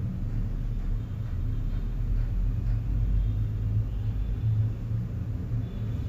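Steady low rumble with a hum, with no sudden events standing out.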